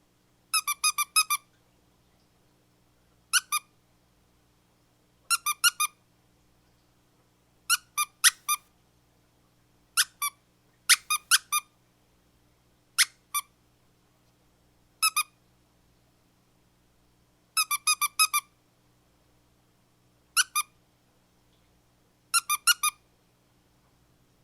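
Squeaky dog toy squeezed in quick clusters of two to five high squeaks, a cluster every two to three seconds.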